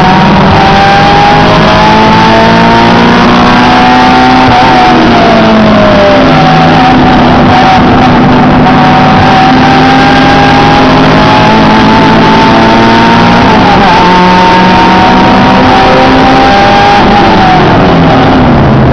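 Honda Integra Type-R's four-cylinder engine heard from inside the cabin at high revs under racing load, its pitch climbing slowly, dipping about five and fourteen seconds in and falling near the end. The sound is very loud and the recording overloaded.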